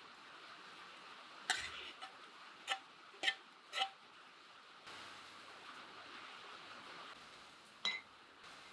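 Sharp clinks of a spoon against a serving bowl, five in about two and a half seconds, as garlic and chili paste is scraped off into a bucket of dogwood purée. One more clink near the end, as a spoon dips into a clay pot.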